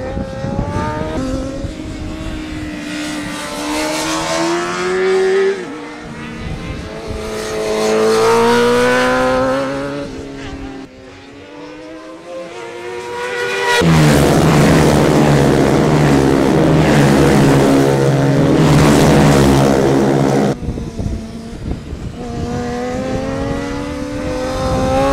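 Superbike engine revving hard on a race track, its pitch climbing through the gears and dropping at a gear change about five seconds in. Past halfway a loud, steady high-revving note holds for several seconds and stops abruptly, then the pitch climbs again near the end.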